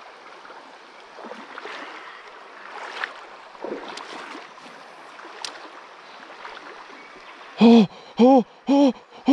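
Shallow river water running over stones, with a couple of faint clicks. Near the end a man lets out a run of short, loud 'oh' cries, about two a second, in excitement at a huge trout going for his lure.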